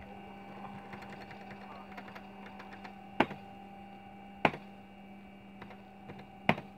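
Computer keyboard typing: a quick run of light key clicks, then three loud single keystrokes a second or two apart, over a steady machine hum with a few held tones.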